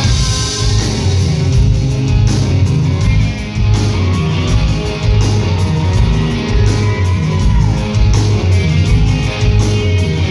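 Live rock band playing: electric guitars, bass and a drum kit with a steady cymbal beat, loud throughout.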